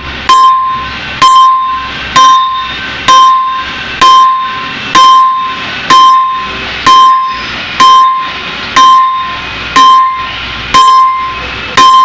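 Hammer striking steel on a concrete pump's S-valve (rock valve) assembly during its removal, about one blow a second at a steady pace. Each blow rings with a clear metallic tone.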